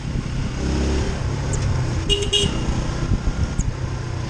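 Motorcycle riding slowly in street traffic, its engine and road noise running steadily underneath; about two seconds in, a vehicle horn gives two short toots.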